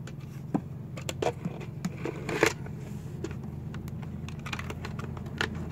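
Small clicks and light knocks of plastic fuel pump module parts being handled and fitted together, with a louder click about two and a half seconds in. A steady low hum runs underneath.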